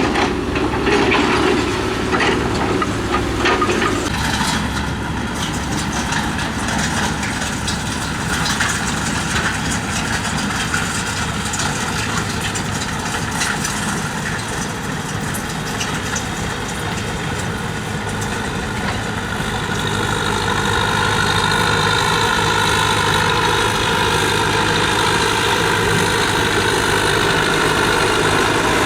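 Diesel engine of heavy tracked earthmoving machinery running steadily, growing louder about twenty seconds in with a higher whine joining it.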